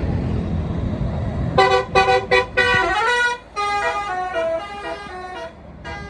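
Tour bus's basuri 'telolet' musical horn playing a tune: a quick run of short toots, then a longer melodic phrase stepping between several pitches, with one more short toot near the end. The bus's engine rumbles low beneath it.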